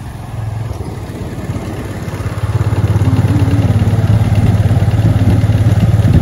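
Small engine of a two-wheeler running as it rides along, a steady pulsing drone that grows louder about two and a half seconds in.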